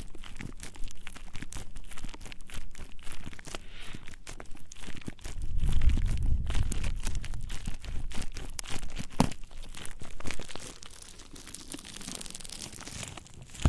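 Dense scratchy crackling and rubbing right on a microphone: ASMR ear rubbing and ear cleaning on a binaural mic's ears. It has a heavier low rubbing in the middle and grows softer for the last few seconds.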